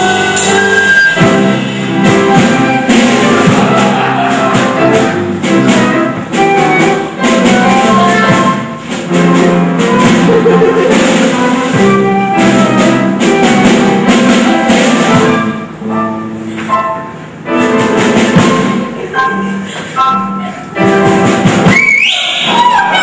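Instrumental show-tune accompaniment from a stage musical: band music with a steady drum beat and no singing. A sliding high note rises near the end.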